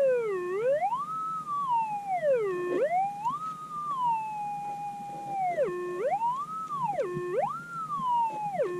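Minelab GPX 6000 metal detector's audio tone: a steady hum that repeatedly swoops down in pitch and back up high, about five times, as the coil is swept back and forth over a target. It is the signal of a deep gold nugget buried in the cap rock.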